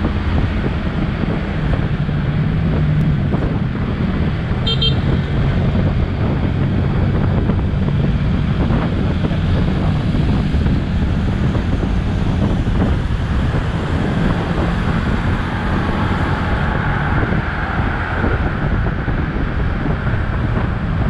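Wind rushing over the microphone on a moving motor scooter, with the scooter's engine and traffic running steadily underneath. A short horn beep sounds about five seconds in.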